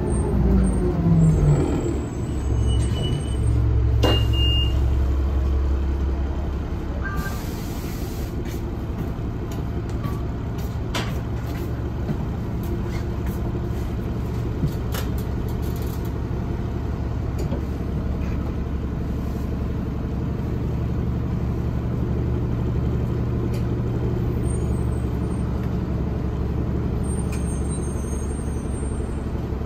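Orion VII diesel city bus heard from inside the passenger cabin: the drivetrain winds down in pitch at the start, a short high tone and a brief hiss of air follow a few seconds in, then the diesel engine runs at a steady low drone.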